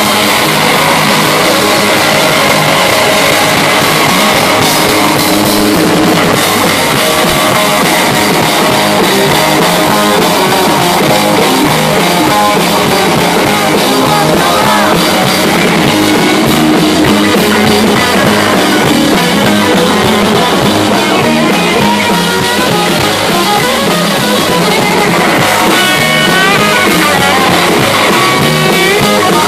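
Live rock band playing loud: electric guitars over a drum kit. Near the end a guitar plays a run of notes bending upward.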